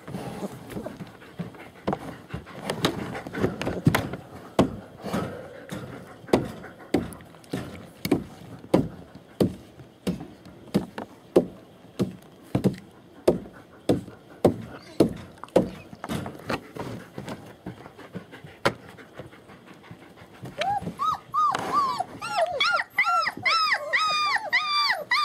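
Adult German Shepherd panting steadily, about one and a half breaths a second. About 21 s in, high-pitched dog whimpering starts, several quick rising-and-falling whines a second.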